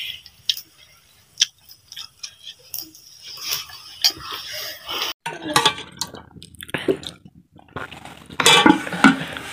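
Spoons and a steel ladle clinking against plates and a steel cooking pot during a meal, with chewing between the clinks. The clinks come in short, scattered ticks, busier and louder near the end.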